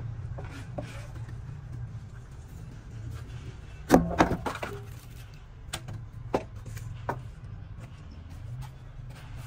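Steady low machine hum with a sudden cluster of loud clanks about four seconds in, followed by a few lighter knocks.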